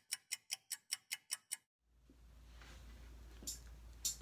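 Clock-ticking sound effect, sharp ticks about five a second, stopping about a second and a half in. Then faint room tone with a low hum and a couple of faint clicks.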